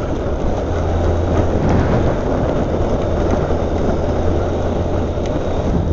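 Motorcycle riding along at steady speed: a steady low engine drone under a loud, even rush of wind noise.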